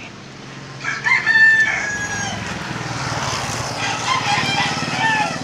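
A rooster crowing: one long call starting about a second in, the loudest sound, with shorter calls again near the end. A steady low engine hum runs underneath.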